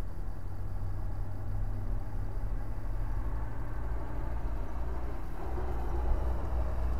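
Road traffic going past, with a large truck's engine rumbling by and growing louder over the last couple of seconds.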